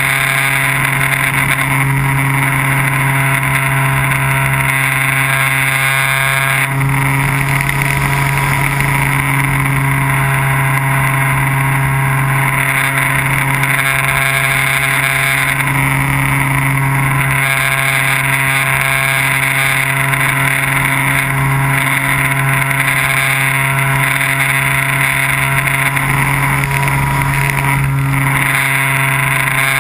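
Small unmanned aircraft's motor and propeller running steadily, heard from a camera mounted on the aircraft in flight: a loud, even drone with overtones, changing tone briefly about seven seconds in and again near the end.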